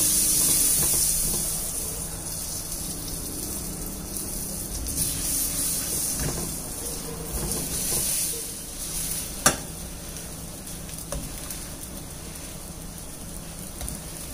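Melted butter sizzling in a frying pan as soft pav buns are rubbed and pressed in it to toast. The sizzle is louder for the first couple of seconds and then settles to a steady hiss, with one sharp tap about nine and a half seconds in.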